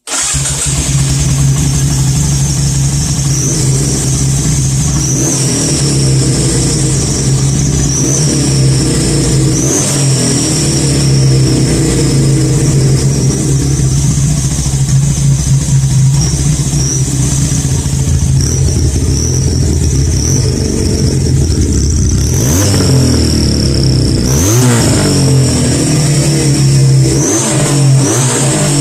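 F300 motorcycle engine idling and being blipped, with a turbo-simulator whistle in the exhaust outlet giving a thin, high whistle over the engine note. The whistle rises in pitch with each blip of the throttle, most strongly on two bigger revs near the end. It is an airy squeal, like a boost whistle.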